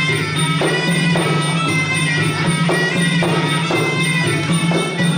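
Traditional Khmer boxing music: a reed oboe (sralai) plays a held, wailing melody over a steady drone, with drum strokes coming in short groups about half a second apart.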